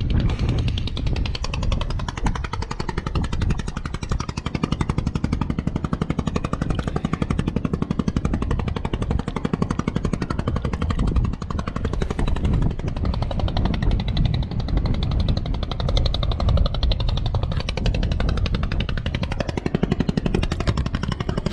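A small engine running with a rapid, steady pulse.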